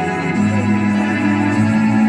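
Background music of held keyboard chords, a soft sustained pad with a steady low note entering about half a second in.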